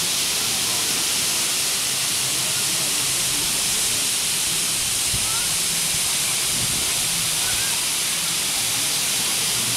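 Fog nozzles spraying mist into a basin: a steady, loud hiss, strongest in the high range.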